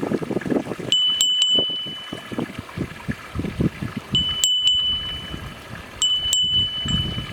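A metal bell clinking and ringing three times with one clear tone, each ring fading over about a second, over a loud, uneven low rumble.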